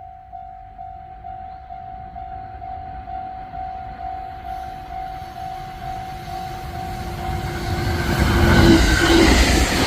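Japanese level-crossing warning bell ringing steadily, a little over two strikes a second. A train approaching at speed rises to a loud rumble over the last two seconds and drowns out the bell.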